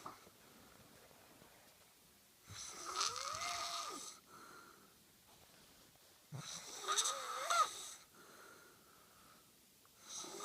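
A woman snoring in her sleep: three loud, rough snores about four seconds apart, each rising in pitch, with softer breathing between them.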